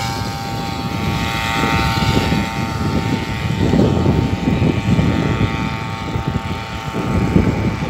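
Wind buffeting the microphone of a camera riding along on a bicycle, a rough, gusty rumble. Over it a steady high-pitched hum fades away gradually and is gone near the end.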